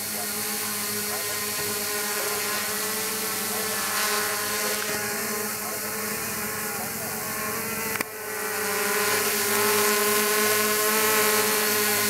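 Quadcopter's four RCMC 2826 brushless motors spinning 9-inch Gemfan propellers, a steady multi-toned buzz while it hovers, with its pitch wavering slightly as the throttle is adjusted. A sharp click comes about eight seconds in, after which the buzz grows louder.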